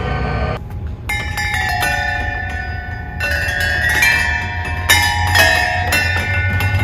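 Hanging metal chime pipes struck one after another with a padded mallet, about half a dozen strikes at uneven intervals, each note ringing on clearly and overlapping the next.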